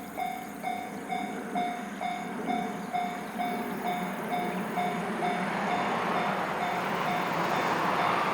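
Japanese railroad crossing warning bell ringing its steady, rapid ding-ding, about two strikes a second. A train's rumble swells under it from about five seconds in as the train approaches.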